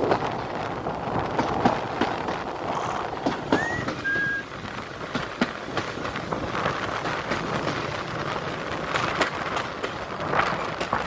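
Moving passenger train heard from an open carriage window: wind rushing past the microphone and the coaches' wheels clattering and clicking over the rails. A short rising whistle-like tone sounds about four seconds in.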